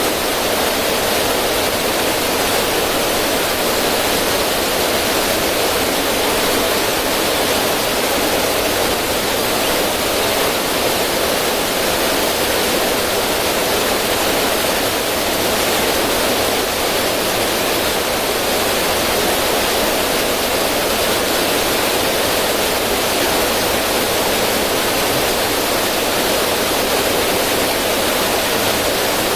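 River water running steadily over rocks in a small cascade, a constant rushing hiss.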